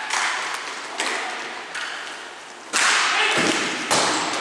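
Ball hockey play: about five sharp cracks of sticks, ball and rink boards, each echoing in a large hall, the loudest about three seconds in.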